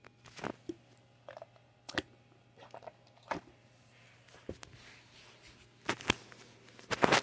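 Close handling noises from a fidget toy and its packaging: scattered clicks, crinkles and rustles, with the loudest crackly burst near the end.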